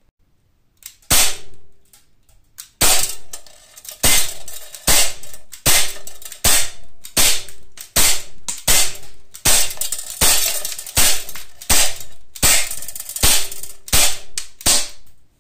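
Umarex Glock 19 CO2 BB pistol firing steel BBs, a non-blowback gun, in a steady slow string: about seventeen sharp pops, one every three-quarters of a second after a first lone shot. Each pop is followed by a short ring as the BB strikes the steel BB trap.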